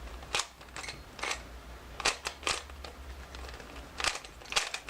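Cyclone Boys 3x3x3 speed cube being turned by hand, its plastic layers giving short, irregular clacks as the faces are twisted. The cube is loose and untensioned.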